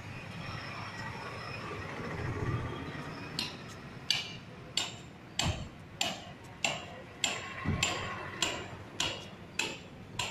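Footsteps on hard paving at an even walking pace, a sharp click about every 0.6 s, starting a few seconds in.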